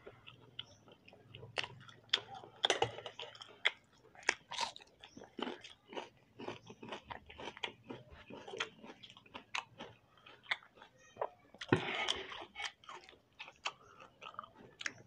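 Close-up chewing and biting of people eating roti with tomato chutney by hand: a dense, irregular run of wet mouth clicks and small crunches, with one louder, noisier burst about twelve seconds in.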